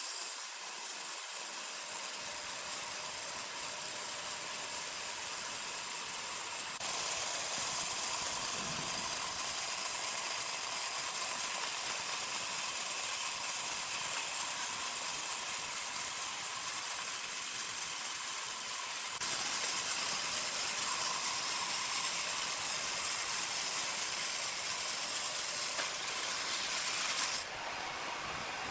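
Sawmill machinery running with a steady high hiss and little low end. The sound changes abruptly about a third of the way in, again about two-thirds in, and once more near the end, where it drops quieter.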